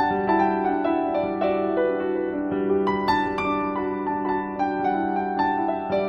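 Background music: a quick melody of plucked-string notes, several a second, each fading out, over held lower notes.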